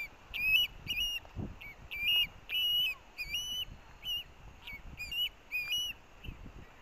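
Osprey fledgling giving a rapid series of short, high whistled begging calls, about two to three a second, stopping about six seconds in: a chick begging for the fish its sibling is eating.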